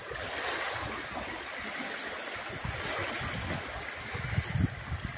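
Water washing at the sandy edge of a reservoir shore: a steady rushing hiss of small waves and trickling water.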